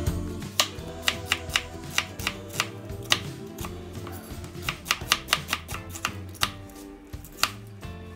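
Chef's knife slicing an onion on a wooden cutting board: a quick, uneven series of sharp knocks as the blade strikes the board, over soft background music.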